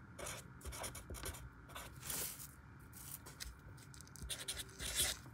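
Felt-tip marker writing on lined notebook paper: short, uneven scratchy strokes as letters are drawn, with the loudest strokes about two seconds in and near the end.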